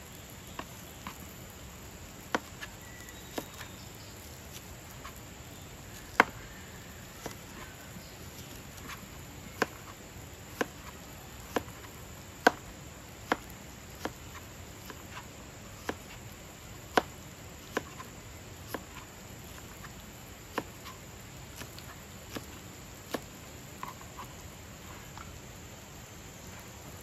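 A large kitchen knife slicing onion on a plastic cutting board. Each cut ends in a sharp, single knock of the blade on the board, at an unhurried, uneven pace of about one a second.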